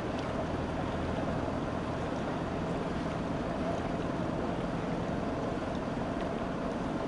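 Steady engine rumble mixed with the wash of floodwater, with no sudden changes: vehicles moving through a flooded street.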